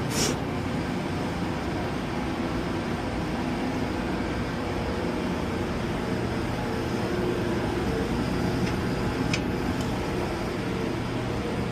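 Boiler running: a steady rumble with a low hum, with a sharp click near the start and another light click about nine seconds in.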